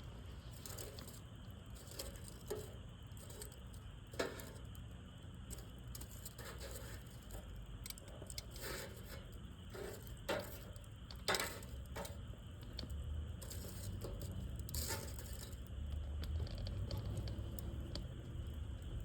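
Wood campfire burning, with scattered sharp crackles and pops a few seconds apart over a low steady rumble that grows a little louder near the end.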